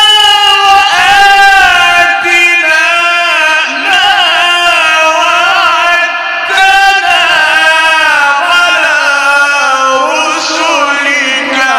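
A man reciting the Quran in a melodic, drawn-out style, holding long ornamented notes with wavering pitch and pausing only briefly for breath.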